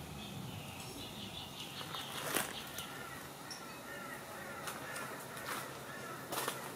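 A bird calling a rapid run of short, repeated notes for a few seconds, over a few sharp clicks.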